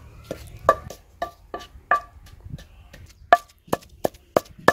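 Long wooden pestle pounding onion into a coarse spice paste in a stone mortar: repeated strikes about two a second, each with a short ring.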